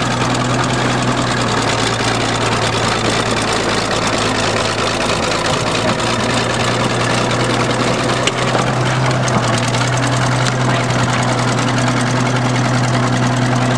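Bulldozer's diesel engine running steadily at a constant speed, a loud low hum with engine noise.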